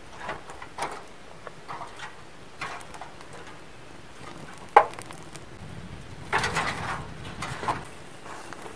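Dishes and cooking things being handled: scattered light clinks and knocks, one sharp knock about five seconds in, and a busier stretch of rustling and clatter around six to seven seconds.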